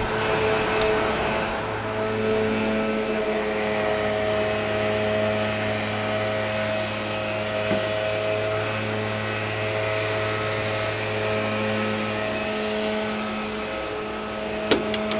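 1978 VW Beetle convertible's air-cooled flat-four engine idling steadily. A few faint clicks sound over it, with a sharper click near the end.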